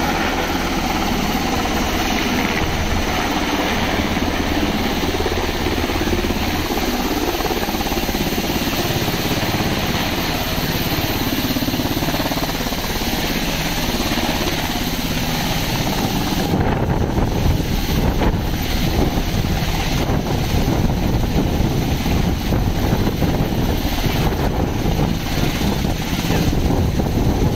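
Black Hawk helicopter coming in to land, its rotors and engines loud and steady. From about sixteen seconds in, as it hovers low close by, a gusty low rumble from rotor wash buffeting the microphone grows louder.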